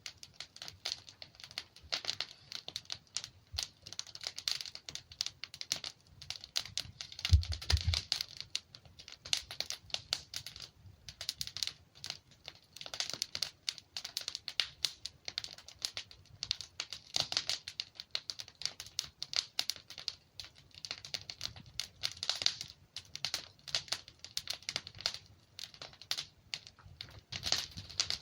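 Wood fire crackling and popping: dense, irregular sharp snaps from burning logs, with one low thump about seven seconds in.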